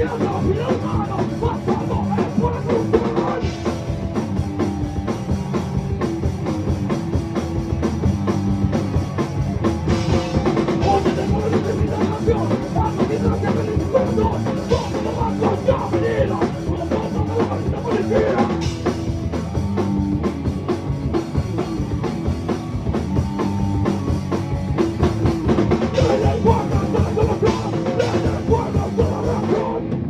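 Ska-core band playing live: drum kit and electric guitar, loud and unbroken, with no break in the playing.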